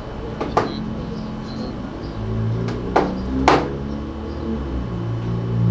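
Three sharp knocks, one just after half a second in and two close together about three seconds in, over a steady low hum.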